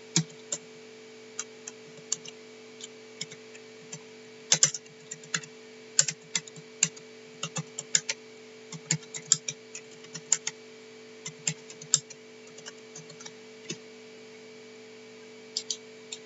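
Typing on a computer keyboard: irregular keystrokes, sometimes in quick runs and sometimes with pauses, as a host name, user ID and password are entered. A steady low electrical hum runs underneath.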